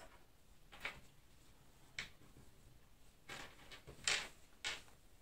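Small metal screws and parts being picked up and set down by hand on a wooden tabletop: a handful of light, scattered clicks and taps.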